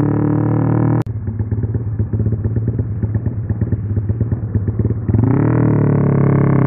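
Motorcycle engine on a Juken 5 ECU tune, held at a steady high rev. About a second in it drops with a click into a choppy, stuttering run with rapid pops. About five seconds in it climbs back to a steady, louder high rev.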